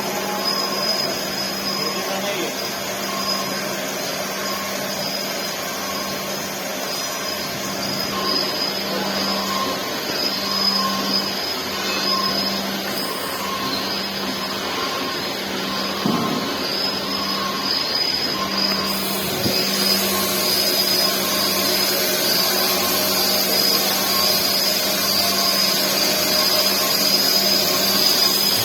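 Heavy-duty CNC machine running: a steady machine whir with a low hum and a high whine over a hiss. It grows a little brighter and louder about two-thirds of the way through.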